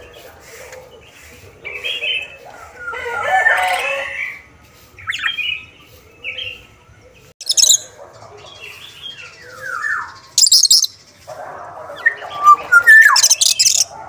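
Caged black-naped oriole (kepodang) calling in bouts a second or two apart. It mixes short falling whistles with harsh, raspy calls. The loudest, shrillest calls come near the end.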